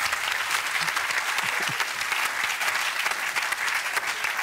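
Studio audience clapping steadily, many hands at once in a dense, even applause.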